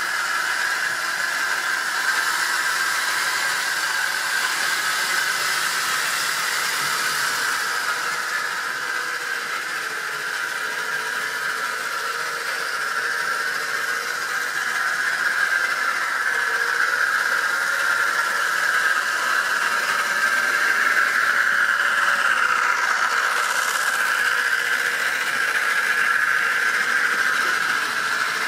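Model railway goods train running on the layout: the steady whirring hiss of the locomotive's electric motor and the wagons' wheels on the track, growing a little louder in the second half as the wagons come past.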